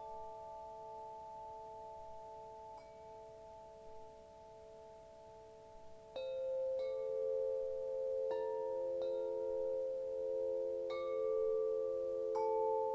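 Wind chimes struck now and then, each strike ringing on in a long, steady tone that overlaps the others. The strikes come more often, and the chimes get louder, from about halfway through.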